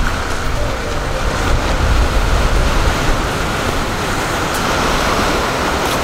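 Ocean surf washing onto the shore, a steady rush, with wind rumbling on the microphone.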